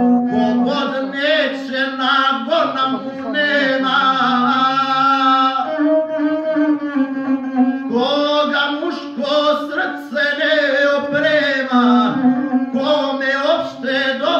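Gusle epic singing: a male guslar chants a narrative song in a declamatory voice over the bowed single string of the gusle, which drones steadily underneath. The voice pauses briefly at times while the string sound runs on.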